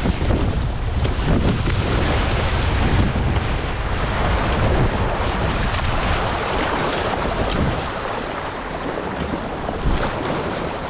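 River water rushing and splashing around a kayak running a low-water rapid, with wind buffeting the microphone in a loud low rumble.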